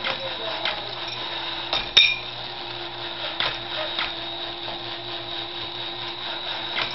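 Battery-operated tin Piggy Cook toy running: its small motor and gears whir steadily while the frying pan tips and tosses the egg, with scattered clicks and the sharpest click about two seconds in.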